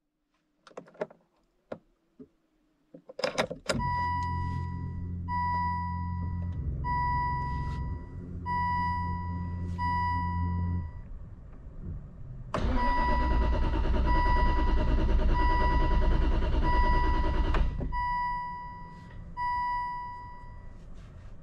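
Aston Martin V8 Vantage dry-sump V8 with the ignition on: a few clicks, then a dashboard warning chime sounds over and over, about once a second, over a steady low hum. About twelve seconds in, the starter cranks the engine for about five seconds without it catching. This turns the V8 over to build oil pressure before it is started, and then the chime and hum carry on.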